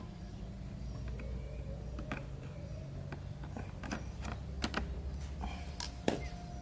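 Irregular light clicks and taps of hand work with wire: a binding wire being folded over where it ties a fuel hose in place of its spring clip.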